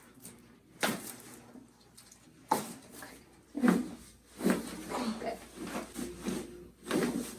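Sharp cracks and thuds of a chiropractic adjustment: about five of them at uneven gaps, the loudest about halfway through.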